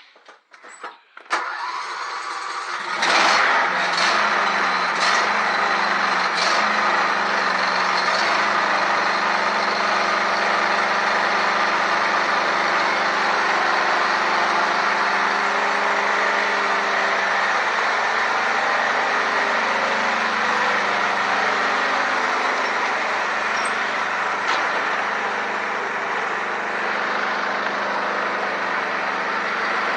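A vehicle engine cranked and started about three seconds in, then idling steadily.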